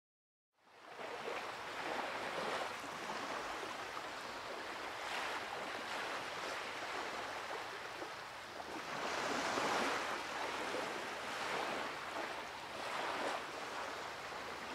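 Sea waves washing, a steady rush of water that swells and fades every few seconds, fading in after a brief silence at the start.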